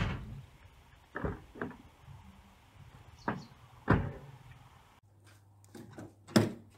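Car doors opening and shutting: a series of separate knocks and thumps, the heaviest door thump about four seconds in and another door clunk near the end.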